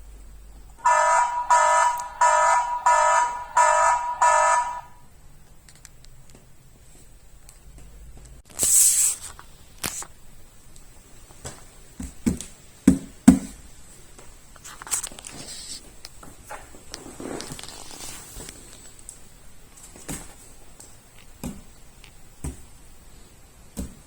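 A home alarm buzzer sounds six loud beeping pulses in quick succession, starting about a second in and lasting about four seconds. Then comes a short hiss, followed by scattered knocks and clicks; two sharp knocks about 13 seconds in are the loudest sounds.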